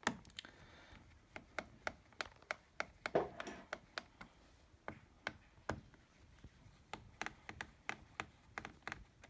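Irregular small sharp clicks and taps, roughly three a second with a louder knock about three seconds in, from a screwdriver working the captive screws loose on a Lenovo ThinkPad T470's bottom cover.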